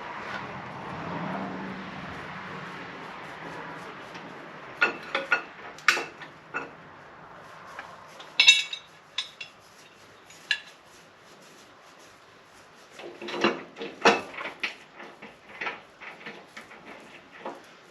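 Metal tools and mower-deck hardware clinking and clanking as mulching blades are fitted: scattered sharp metallic strikes with brief ringing, a few about five seconds in, a loud one past eight seconds, and another cluster around thirteen to fourteen seconds. A steady rushing noise fades out over the first few seconds.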